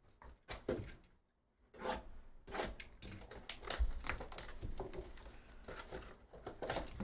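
Cardboard trading-card hobby box being handled and opened: a few light taps and clicks, then from about two seconds in, continuous tearing and rustling of cardboard and packaging.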